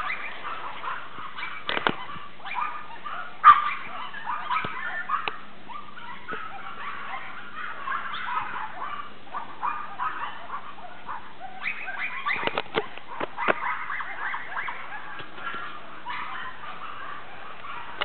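Pekeatese puppy whimpering and yapping almost without pause, with scattered sharp knocks; the loudest knock comes about three and a half seconds in, and a cluster of them comes around twelve to thirteen seconds in.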